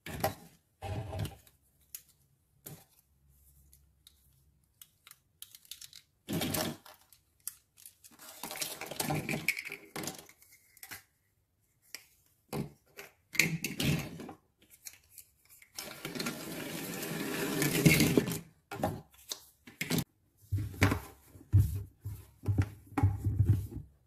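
Small hard plastic toy kitchen pieces and a plastic carry case clicking, tapping and knocking as hands handle them, in short irregular bursts with quiet gaps. About two-thirds of the way in comes a louder, longer stretch of plastic rubbing and scraping, followed by a cluster of knocks.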